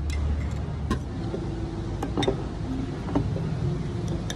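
Restaurant table ambience: a steady low rumble with a few light clinks of tableware.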